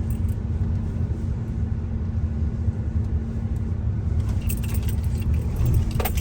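Steady road and engine rumble heard from inside a moving car, with quick light clicking and rattling from about four seconds in.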